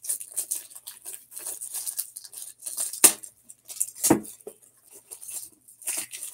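Plastic packaging crinkling and rustling as a pack of top loaders is opened, with two louder knocks about three and four seconds in.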